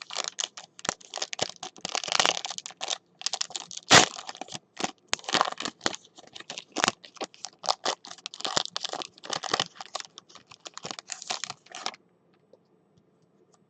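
Trading card pack wrapper being torn open and crinkled: a quick, uneven run of crackles and rustles, with a sharper crack about four seconds in. It stops about twelve seconds in.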